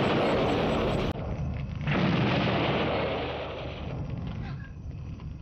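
Two explosions: one blast already going as it starts and cutting off about a second in, then a second blast about two seconds in that slowly dies away.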